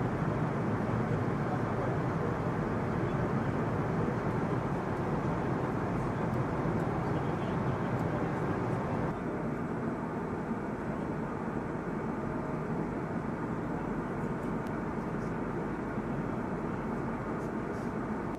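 Steady drone of an aircraft in flight, engine and airflow noise heard from aboard the aircraft. About nine seconds in it drops slightly in level and turns duller.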